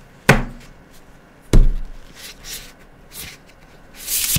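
Plastic highlighter marker pens being set down on a paper-covered table: two sharp knocks about a second apart, a few lighter taps, then a short rustle near the end as a pen is moved across the paper.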